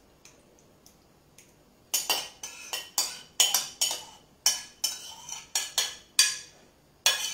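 A spoon scraping and clinking against a ceramic plate and a metal pastry ring as tartare is scraped off the plate, a quick run of sharp strikes starting about two seconds in.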